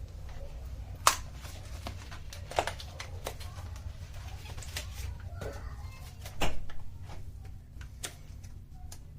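Scattered sharp clicks and light knocks from computer parts being handled as RAM sticks are fitted into a motherboard's slots, over a low steady hum.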